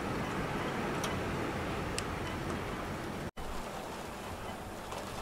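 Heavy rain falling outside, heard as a steady hiss with a few faint sharp drip ticks. The sound drops out for a moment about three seconds in.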